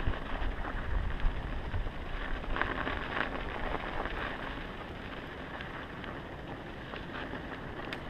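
Mountain bike rolling along a snow-covered road: a steady hiss and crackle of tyres on the snow, with low wind buffeting on the camera microphone in the first second or so. The sound eases off slightly toward the end.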